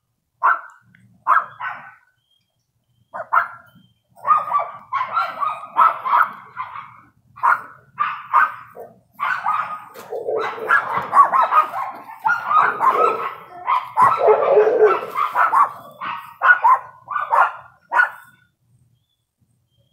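A dog barking: a few single barks at first, then a long run of rapid barks that stops near the end.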